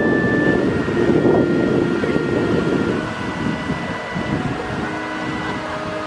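Steady rush of water from two pond fountain jets, mixed with wind on the microphone. It is a little louder in the first half and eases slightly about halfway through.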